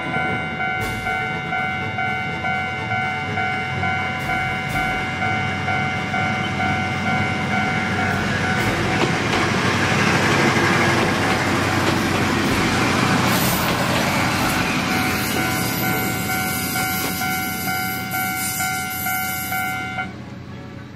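Railway level-crossing alarm ringing in a fast repeating ding, about two a second, while a Kominato Railway diesel railcar runs past; the engine and wheel-on-rail noise swells to its loudest around the middle and fades. The alarm stops suddenly about twenty seconds in, once the train has cleared.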